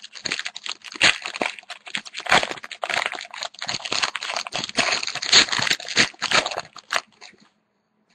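Foil wrapper of a trading-card pack crinkling and crackling as it is torn open and handled, stopping about seven seconds in.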